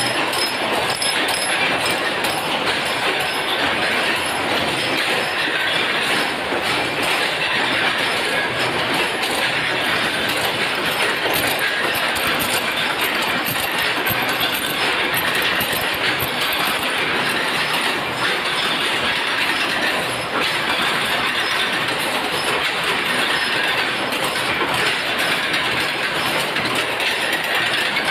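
Mild-steel chain-making machines running: a steady, dense metallic clatter of rapid clicks and knocks.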